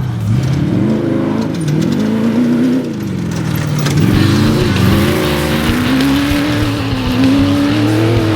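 Off-road race vehicle's engine running hard. Its pitch drops and climbs again several times as the throttle comes off and back on, then rises steadily toward the end.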